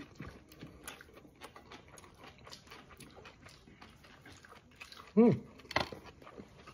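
Close-miked chewing of cooked long beans: a quiet, irregular run of small wet mouth clicks and smacks, with a short hummed "hmm" about five seconds in.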